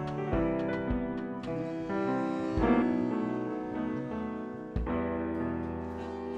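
Band playing an instrumental passage led by piano or keyboard chords over a bass line, with no singing. The chords are held and change every couple of seconds.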